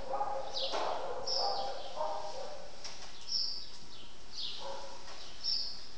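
Animal cries: short, high-pitched cries that fall in pitch, mixed with fainter whines, recurring about once a second.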